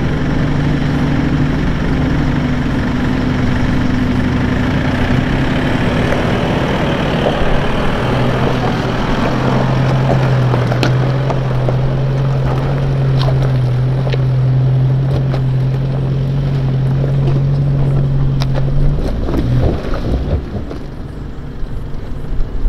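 Isuzu MU-X's diesel engine pulling steadily in low range up a rocky track, with stones cracking and popping under the tyres as it passes close by; the engine note drops and fades near the end as it climbs away.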